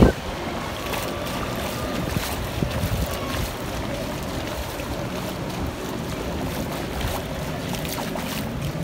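Steady shoreline ambience: wind on the microphone over small waves lapping at the water's edge, with motorboats running in the distance.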